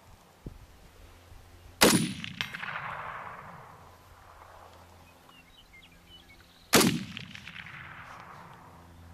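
Two shots from an M1 Garand rifle, about five seconds apart, each a sharp crack followed by a long echo that fades over a couple of seconds.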